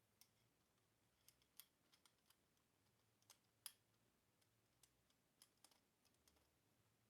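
Faint, irregular clicks and taps of small metal parts being handled and fitted as the grip frame goes back onto a Sheridan PGP paintball marker, the sharpest click a little over halfway through.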